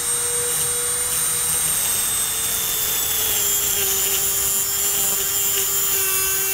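Dremel rotary tool with a cutoff wheel running at high speed, cutting through a copper heat pipe: a steady high whine over a grinding hiss, its pitch sagging slightly partway through.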